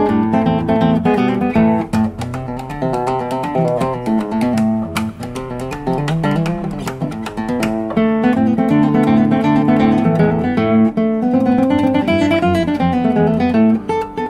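Acoustic guitar music, plucked and strummed, with quick runs of notes.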